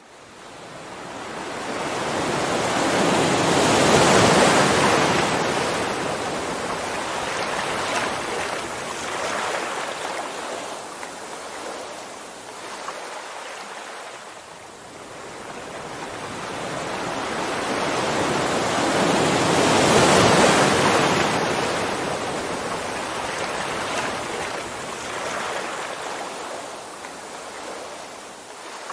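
Ocean surf: a rushing wash of breaking waves that slowly swells and fades, loudest about four seconds in and again about twenty seconds in.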